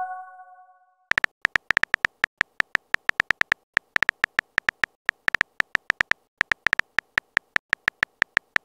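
Keyboard tap sound effects from a texting-story chat app: short, sharp clicks at about six a second in an uneven typing rhythm, one per letter as a message is typed. A chime of several tones fades out in the first second.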